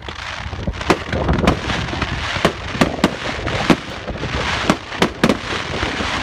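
Fireworks going off: many sharp bangs in quick, irregular succession over a continuous noisy crackle.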